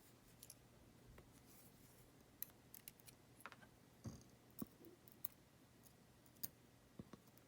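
Faint, scattered small clicks and ticks of tiny lock pins and metal tools being handled on a workbench, about a dozen light taps at irregular intervals.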